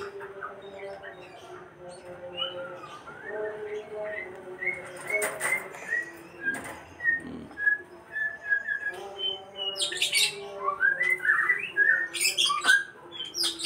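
A bird chirping: short high chirps repeated about every half second, with a few clicks in between.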